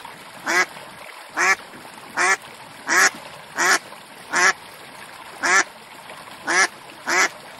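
A duck quacking: nine loud single quacks, evenly paced at a little over one a second.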